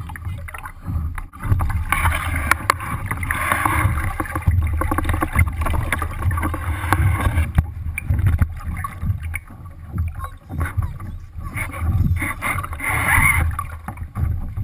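Lake water rushing and splashing along the hull of a Sunfish sailboat under sail, with wind buffeting the deck-level microphone. The splashing surges three times, as small waves slap the hull.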